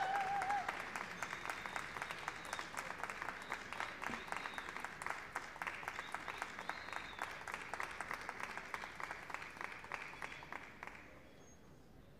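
Large indoor arena audience applauding steadily, the clapping fading and dying away about a second before the end.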